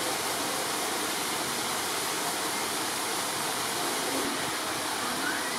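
A steady rushing noise, like running water, that holds at an even level throughout.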